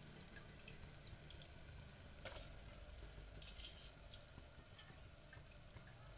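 Soaked long-grain rice tipped from a steel vessel into an aluminium pressure cooker of tomato masala: a faint wet patter, with a sharp click about two seconds in and a few light clicks a second later. A faint steady high whine runs underneath.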